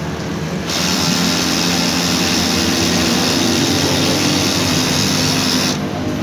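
Canon iR 1133 copier running: a steady mechanical noise from its motor and gear drive that starts about a second in and stops abruptly about half a second before the end.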